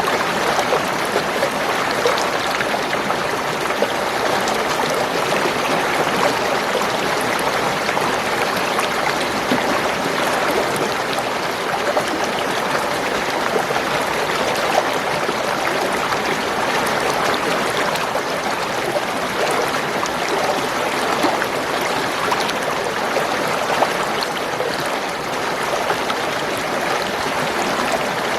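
Spring water running and gurgling steadily over stones, a continuous babble of small splashes.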